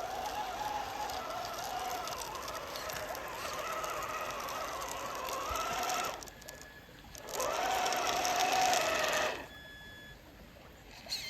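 RC truck's electric motor whining, its pitch wavering up and down with the throttle. It stops about six seconds in, then runs again for about two seconds.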